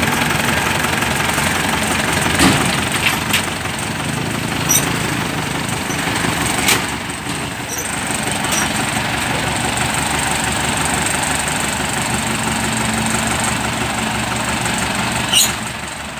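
Kubota DC-105X combine harvester's diesel engine running steadily as the tracked machine crawls across the ferry deck and steel ramps. Several sharp metallic knocks come through, the loudest near the end.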